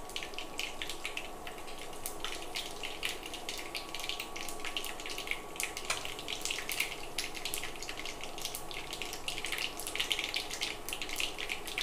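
Hot oil sizzling in a pan as tempering spices (mustard seeds, cumin seeds and split chickpeas) fry: a steady hiss with many small crackles and pops.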